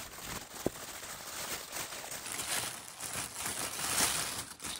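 Honeycomb kraft packing paper and then tissue paper rustling and crinkling as a package is unwrapped by hand, with irregular crackles throughout.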